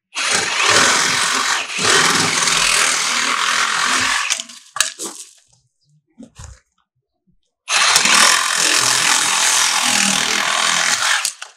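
Power saw cutting through PVC pool plumbing pipe, in two cuts of about four seconds each with a short pause and a few clicks between them.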